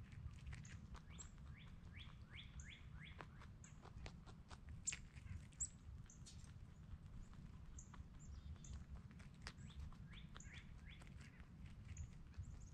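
Faint bird chirps and repeated short high calls, with scattered soft clicks of a cottontail rabbit crunching granola close by, over a low steady rumble.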